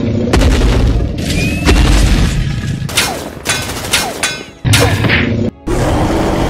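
Edited-in cartoon sound effects for a toy monster's attack: about six loud booms and crashes in a row, each trailing off, over background music.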